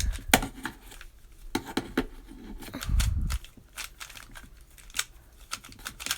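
Plastic Rubik's cube being turned by hand, its layers clicking and snapping in quick irregular twists, with a dull low thump about three seconds in.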